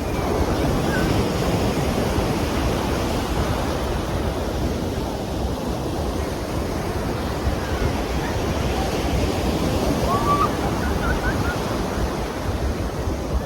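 Ocean surf washing and breaking in a steady rush, swelling and easing slightly.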